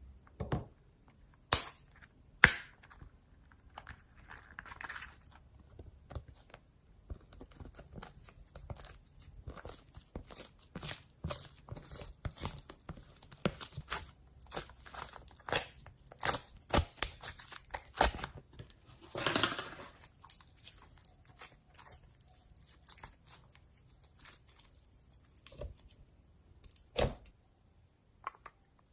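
Slime being squeezed and poked by hand, giving an irregular run of crackly pops and clicks, dense through the middle, with a longer rasping stretch about two-thirds of the way through.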